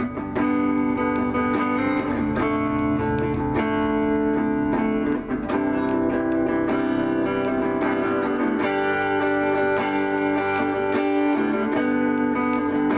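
Electric guitar played through a clean amp setting: ringing chords and arpeggiated notes that let each voicing sustain, changing every couple of seconds.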